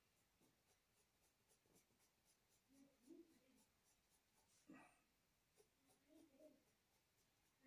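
Faint graphite pencil strokes scratching on drawing paper, a soft repeated rasp of short strokes, with a brief soft knock a little past halfway.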